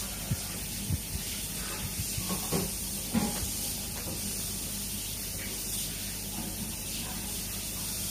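Siemens electric oven running while baking: a steady fan-like hiss with a low hum. A few light knocks in the first few seconds.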